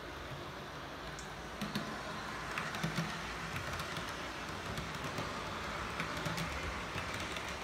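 Two coupled Piko class 442 Talent II model electric multiple units running along model railway track: a low steady hum with small irregular clicks from the wheels on the track, the clicks starting about a second and a half in.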